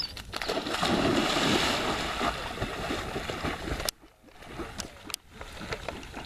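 A retriever splashing into a pond: a loud rush of splashing water lasts a few seconds and then stops suddenly, leaving only quieter water sounds and a few sharp clicks while the dog swims.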